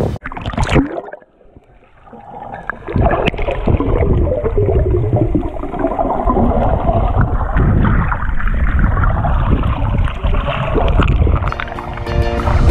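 Muffled underwater water noise heard through an action camera's waterproof housing while snorkeling: a short splash near the start, a brief quiet moment, then continuous churning and gurgling of water. The sound is dull, with no high end.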